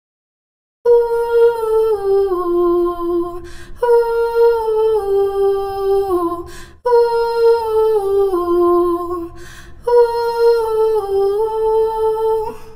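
A high-pitched voice humming a short tune that steps down in pitch, repeated four times, with a quick breath between phrases.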